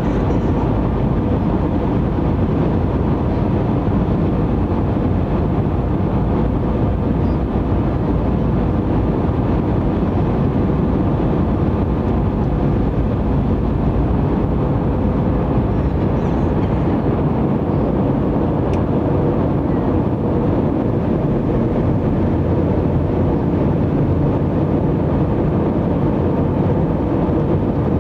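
Steady cabin noise of an Airbus A321 descending to land: the jet engines and rushing airflow heard through the fuselage as an even, deep rumble with a faint steady hum.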